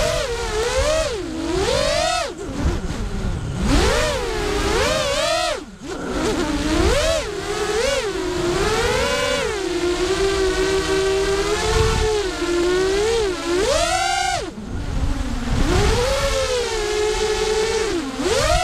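Brushless motors of a Dronewolf Pup FPV quadcopter whining in flight, the pitch rising and falling constantly with the throttle. It drops away briefly about six seconds in and again near fourteen seconds as the throttle is cut, over a low rumble of air on the onboard microphone.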